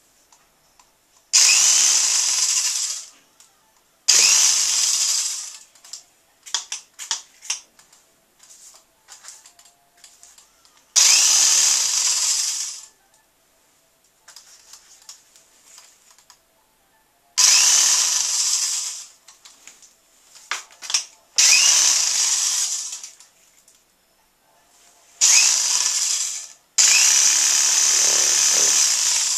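Handheld electric power drill run in about seven short bursts of one to two seconds, each starting with a quick rising whine as the motor spins up, its spinning attachment pressed against the painted canvas. Scattered light taps and clicks come between the bursts.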